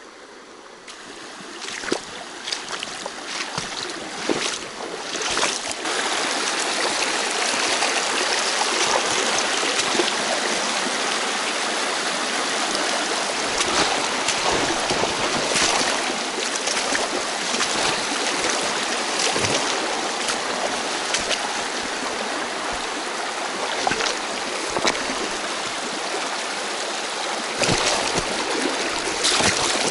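Shallow, fast stream running over rocks close by, a steady rush of water. It swells over the first few seconds and then runs on evenly, with a few short sharper splashes.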